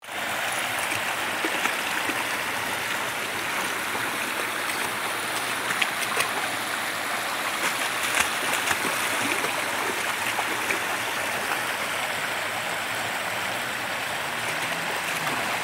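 Shallow rocky creek running steadily over stones and a small cascade, with a few brief splashes from a dog wading through the water.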